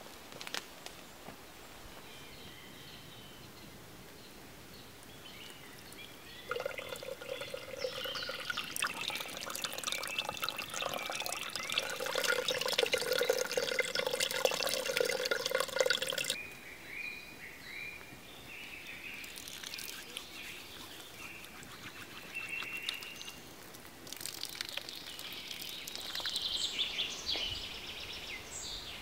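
A thin stream of water pouring from a bark-covered wooden spout. It starts about a quarter of the way in and cuts off suddenly around the middle. After that, small birds chirp over a quiet forest background.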